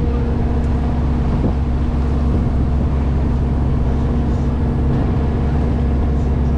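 Water bus engine running steadily under way: a constant low drone with a steady hum, over the rush of water along the hull.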